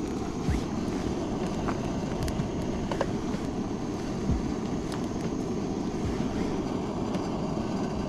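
Campfire burning strongly in a small fire pit: a steady low rush with scattered sharp crackles and pops at irregular moments.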